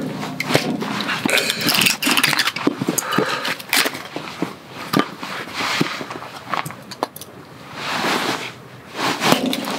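Firewood being split by hand with a blade: irregular sharp knocks and the cracking of wood as the logs split, with scraping and handling noise in between.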